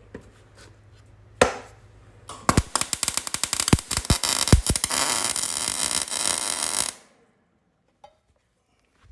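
MIG welder arc crackling as a small plate is tack-welded in: a short strike about a second and a half in, then a steady crackle for about four and a half seconds that stops abruptly.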